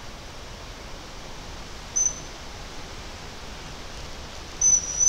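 Hazel grouse whistle: a short, very high, thin note about two seconds in, then a longer note and a short one near the end, over a steady hiss of wind in the leaves.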